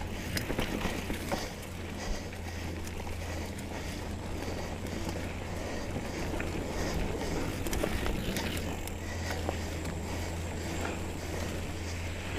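2017 Trek Remedy 7 mountain bike ridden along a dirt trail: tyres rolling over the dirt with scattered clicks and rattles from the bike, over a steady low hum.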